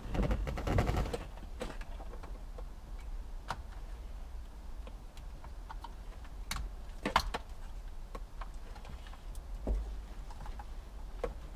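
Plastic wiring-harness junction blocks being handled and fitted together: a rustle at first, then scattered sharp clicks and taps a second or two apart.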